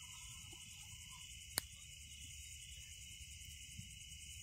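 Crickets chirring steadily in a night chorus, a shrill pulsing trill with no break. A single sharp click sounds about one and a half seconds in.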